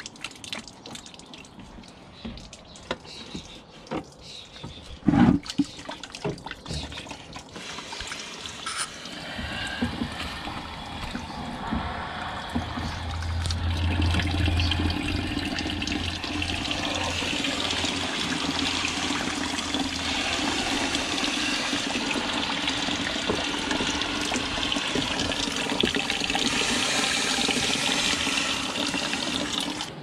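Water draining from a hose into a plastic bucket: at first a thin dribble with scattered drips and one loud knock about five seconds in, then from about ten seconds a steady, louder stream splashing into the water in the bucket.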